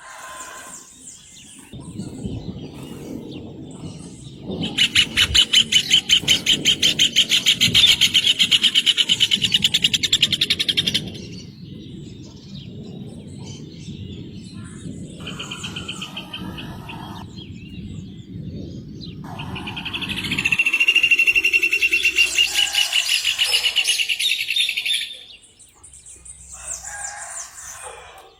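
Rufous hornero (João-de-barro) singing: two loud bouts of rapid, evenly repeated trilled notes, the first starting about five seconds in and lasting about six seconds, the second coming about two-thirds of the way through, with fainter trills between them. A low rumble lies under the first two-thirds.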